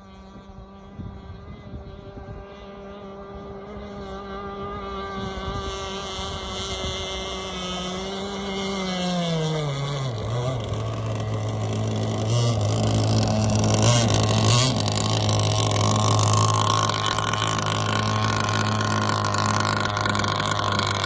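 Gas RC catamaran's small two-stroke engine running at high revs out on the water. Its pitch falls as the throttle comes off about nine seconds in, and it then runs steadily at low revs, growing louder as the boat comes in close.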